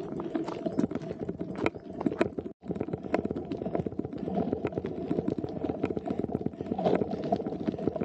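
Gravel crunching and clattering in a dense, irregular stream of small clicks on a steep gravel road climb. The sound drops out for an instant about two and a half seconds in.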